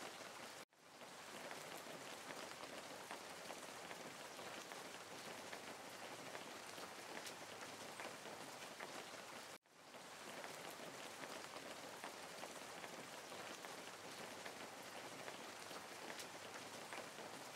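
Steady rain sound: a continuous hiss with fine patter. It cuts out for a split second twice, under a second in and about halfway through, and fades back in each time.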